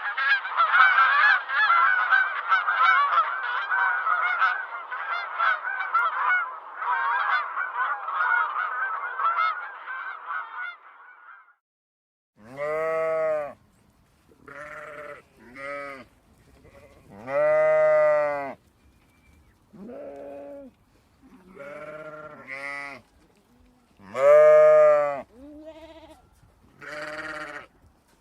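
A flock of geese honking all together, fading out about ten seconds in. Then a series of sheep and goat bleats, about eight calls, some long and drawn out, the loudest near the middle and toward the end.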